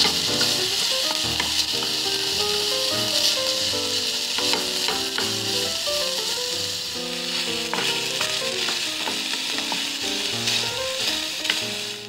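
Ground beef sizzling as it browns in a skillet, stirred and scraped now and then with a wooden spatula. Melodic background music plays underneath.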